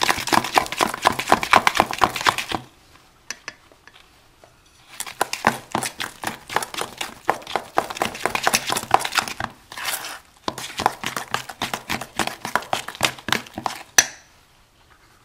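Metal fork beating creamed butter and sugar by hand in a stainless steel bowl: rapid scraping and clinking of the fork against the bowl in three spells with short pauses, ending with one sharp tap on the bowl.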